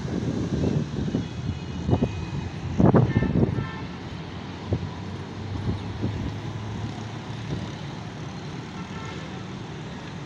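Road traffic noise with a low, gusty rumble, and a vehicle horn sounding briefly about three seconds in and faintly again near the end.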